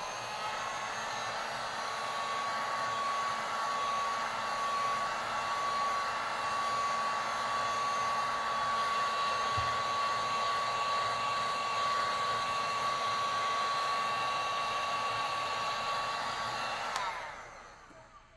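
Heat gun blowing steadily with a steady high whine, blowing hot air to swirl alcohol ink through wet epoxy on a tumbler. It is switched off near the end and runs down over about a second.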